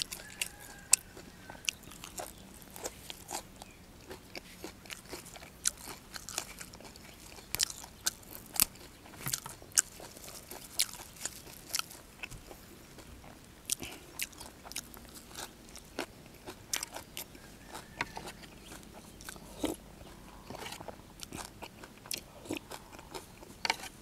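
A person chewing and crunching food close to the microphone: irregular crisp crunches and wet mouth clicks, eating fresh young leaves with fish laab.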